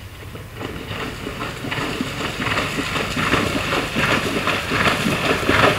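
A horse cantering through a shallow water jump, its hooves splashing and throwing up water. The splashing grows louder as it comes closer.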